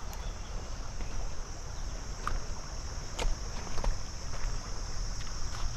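Steady, high-pitched insect chorus droning without a break over a low rumble of water and wind, with a few faint clicks about two, three and four seconds in.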